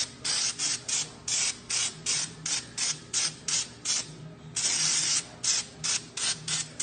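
Cleaner being sprayed onto the brake hub in quick short hissing squirts, about two to three a second, with one longer spray a little past the middle.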